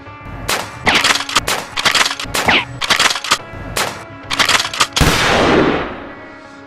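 Several bursts of rapid gunfire sound effects, with a longer rushing blast about five seconds in that fades away, over steady background music.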